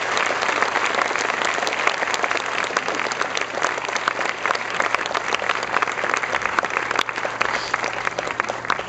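A large theatre audience applauding, many hands clapping densely, thinning out near the end.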